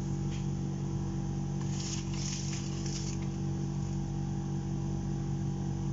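A steady low hum from a running kitchen appliance, with a short soft scraping hiss about two seconds in as thick cake batter slides out of a metal mixing bowl into the baking pan.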